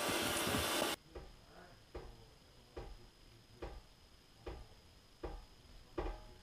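Steady static hiss that cuts off suddenly about a second in. It is followed by soft ticks at an even pace, a little more than one a second.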